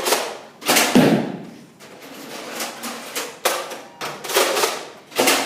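Nerf blasters firing: about six short, airy pops, with a thud about a second in.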